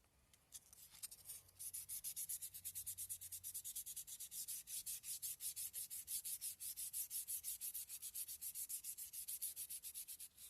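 Fine 400-grit sandpaper rubbing back and forth over an oil-soaked wooden gun stock in quick, even strokes, starting about a second and a half in: wet-sanding linseed oil into the wood so the slurry fills the grain.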